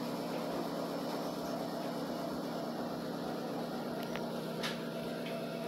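Steady, even machine-like hum, with a few faint short clicks about four to five seconds in.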